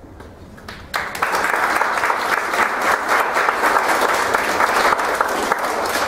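Audience applauding, starting suddenly about a second in.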